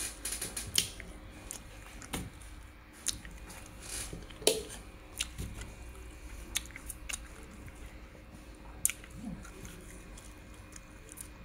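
Fingertips tapping and handling an Android car stereo's glass touchscreen: scattered sharp clicks at irregular intervals, over a low steady hum.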